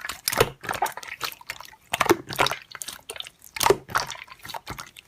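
Slime being squeezed and worked by hand, making irregular wet, sticky clicks and pops.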